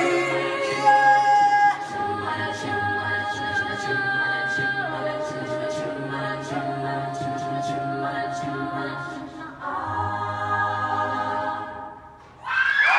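Mixed-voice a cappella group singing the closing chords of a song, holding long notes and shifting chord several times before the voices stop about twelve seconds in. Applause and cheering break out just before the end.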